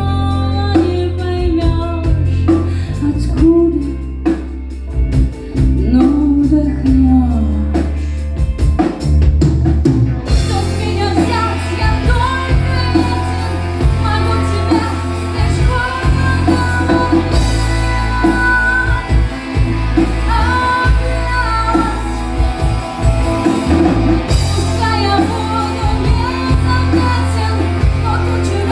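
Live band music with singing over a steady bass; about ten seconds in the drums and cymbals come in with the full band.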